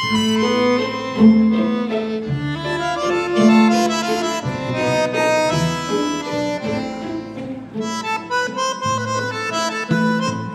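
Argentine tango music with a bandoneon playing the melody in sustained, reedy notes.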